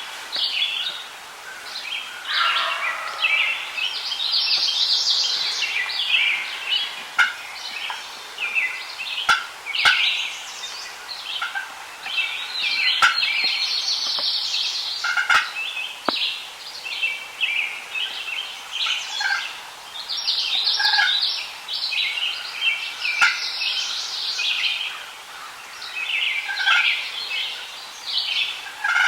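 Wild turkey gobbler gobbling several times, answering during a spring gobbler hunt, over a busy dawn chorus of songbirds.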